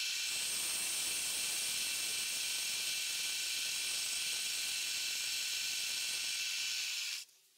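Milling machine running a two-flute reverse-spiral (down-cut) end mill at 2000 RPM through wood, cutting a quarter-inch-deep slot. It makes a steady hiss with a faint high whine, and stops abruptly near the end.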